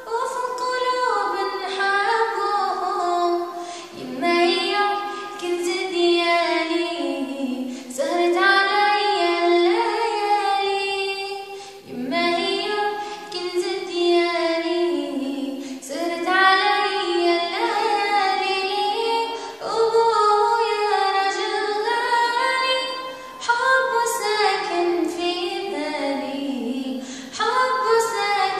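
A girl singing solo with no accompaniment, in long held and gliding notes, pausing briefly between phrases.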